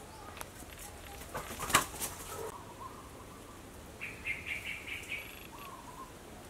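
A metal spoon clinking and scraping against a ceramic soup bowl while scooping, with a cluster of sharp taps about a second and a half in, the loudest of them a single sharp clink. Around four seconds in comes a quick run of short high chirps.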